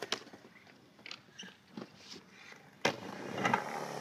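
Skateboard wheels rolling on concrete, growing louder toward the end as the board comes closer, with faint clicks and one sharp click of the board about three seconds in.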